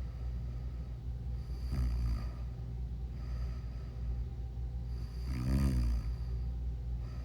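A person snoring, with a snore about two seconds in and a louder, pitched one about five and a half seconds in, over a steady low hum.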